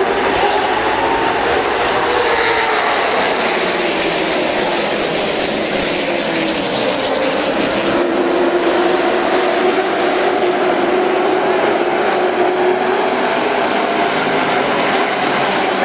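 Stock car engines racing around a short oval, a loud steady drone whose pitch swells and sags as cars go by.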